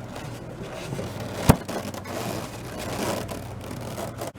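Handling noises: rubbing and scraping with one sharp knock about a second and a half in, over the steady hum of a small electric fan running in a foam-box cooler.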